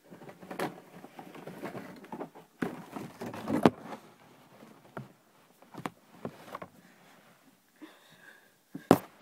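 Rustling and shuffling from someone rummaging through things, with several sharp knocks and clicks; the loudest knocks come about four seconds in and just before the end.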